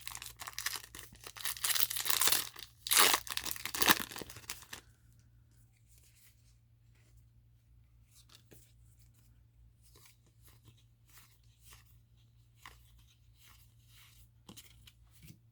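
A Yu-Gi-Oh! booster pack's foil wrapper being torn open and crinkled for about five seconds. Then come faint, scattered soft ticks of cards being handled.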